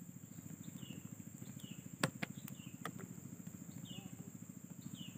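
Steady high insect drone with short, falling bird chirps about once a second and a low rapid pulsing underneath. A few sharp clicks come around two seconds in as the prawn and hook are handled.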